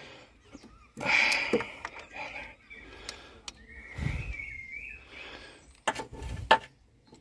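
Hand-tool work on the timing belt tensioner of a 1.8 K-series engine: scattered metallic clicks and knocks with short scraping bursts, and a brief high squeak or chirp about four seconds in.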